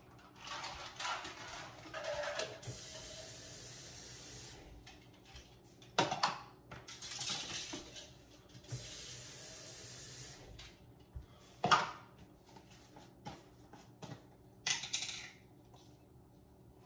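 Kitchen tap running into a cup in two steady spells of a couple of seconds each, with sharp knocks and clinks of cups and containers handled on the counter in between.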